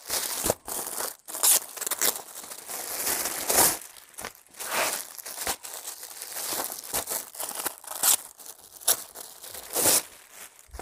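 Clear plastic film wrapped around artificial grass door mats crinkling as it is handled and pulled off, in irregular crackly bursts.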